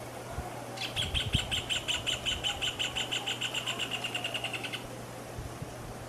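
Rufous hornero (joão-de-barro) singing its song: a loud, fast series of sharp, ringing notes that starts about a second in, quickens and fades over some four seconds. A few low thumps fall near its start.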